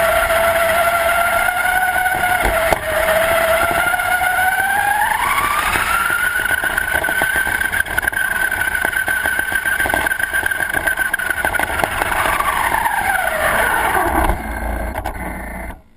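RC car's motor whining at speed over a rush of noise. Its pitch climbs about five seconds in, holds high, then falls away near the end as the car slows, and the sound cuts off abruptly.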